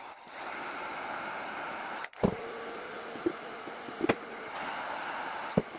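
Handheld electric heat gun running, a steady blowing hiss. A few short knocks in the second half as the heated HDPE plastic is handled and pressed with a tool.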